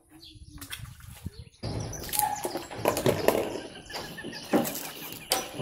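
Water splashing and sloshing at the surface, starting about one and a half seconds in, with birds chirping.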